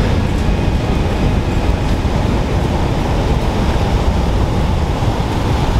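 Steady wind noise on the microphone mixed with the wash of surf breaking over rocks.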